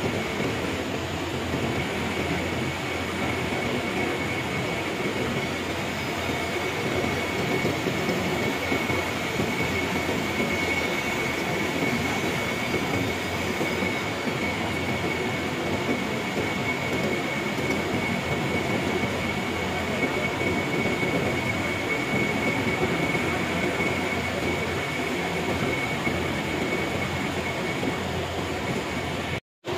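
A machine running steadily, a continuous mechanical rumble and hiss with a constant high-pitched whine over it.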